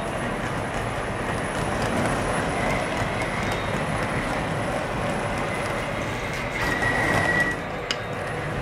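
O scale model freight cars rolling past on MTH ScaleTrax track, a steady rumble of wheels on the rails. A brief high squeal rises about seven seconds in, followed by a sharp click.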